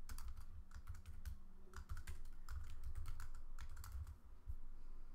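Typing on a computer keyboard: an irregular run of key clicks.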